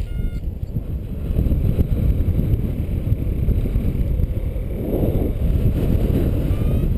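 Wind buffeting the microphone of a paraglider pilot's camera in flight: a gusting low rumble from the airflow, heaviest about five seconds in. Near the end a paragliding variometer gives a short rising beep, its climb tone in rising air.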